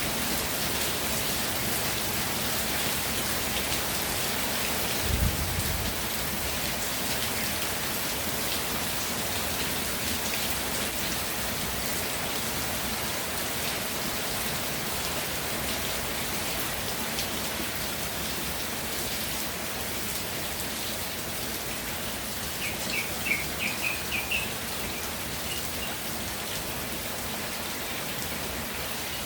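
Steady rainfall pattering on the ground. A brief low thump comes about five seconds in, and a quick run of short high chirps is heard near the end.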